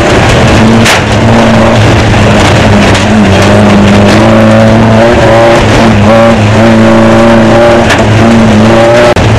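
Off-road desert race car's engine, heard from inside the car, running hard and loud, its pitch wavering up and down with the throttle. There is a sharp knock about a second in and another near the end, and the engine sound drops out briefly just before the end.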